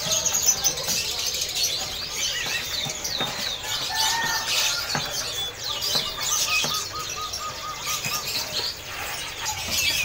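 Many caged songbirds chirping and calling together in a dense, overlapping chorus of short high chirps and trills. One bird gives a quick run of about nine repeated notes, around six a second, starting about six seconds in. Scattered sharp clicks sound through the chorus.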